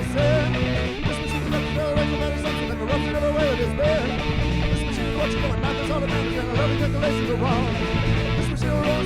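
Punk rock band playing an instrumental passage: a guitar line with bent notes over bass and a steady drum beat.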